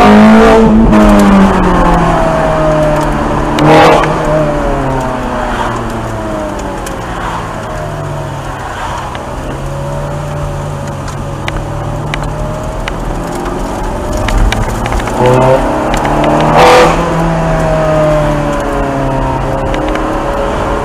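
Ferrari 430 Scuderia's naturally aspirated 4.3-litre V8 heard from inside the cabin, loud at first and then falling in pitch as the revs drop, before climbing and dipping again. Two short sharp cracks break through, about four seconds in and again late on.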